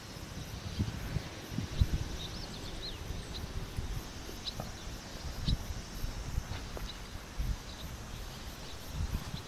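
Outdoor summer ambience: wind buffeting the microphone in irregular gusts, with a few short bird chirps and a faint steady insect drone.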